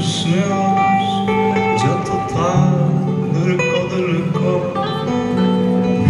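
Live solo song: a man's voice singing over a steady chordal instrumental accompaniment.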